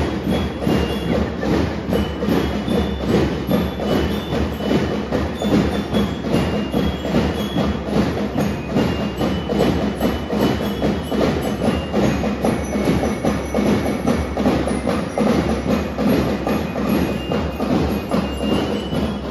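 Drum and lyre band playing: a steady, driving beat on drums with bell lyres picking out a high, ringing melody of short notes.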